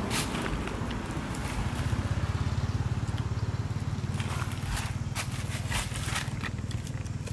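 An engine running steadily in the background, a low rumble with a fast even pulse, with scattered light clicks and rustles over it.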